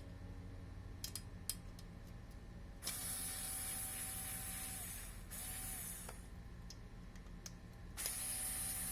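Small cordless screwdriver motor whirring with a steady whine, run in bursts: a few clicks first, then one run of about two and a half seconds, a brief blip, and another run starting near the end.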